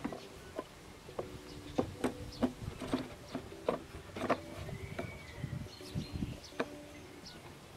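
Irregular light clicks and knocks of a plastic lawnmower wheel being handled and seated on its axle with new flanged ball bearings. An intermittent low buzzing hum comes and goes behind them.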